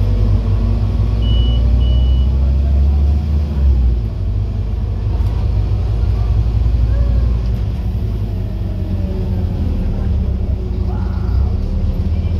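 Scania N230UD OmniCity double-decker bus's diesel engine and drivetrain under way, heard from the upper deck as a steady low drone that lightens about four seconds in. Two short high beeps sound about a second in.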